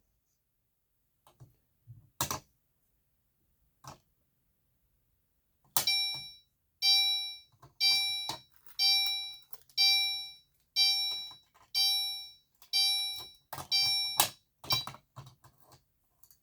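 Fire alarm horn strobe (Gentex Commander 3) sounding a pulsed chime-like tone, about one pulse a second, nine pulses in all, each struck and then dying away. It comes after a few scattered clicks of the pull station being handled, and is cut off by a sharp click.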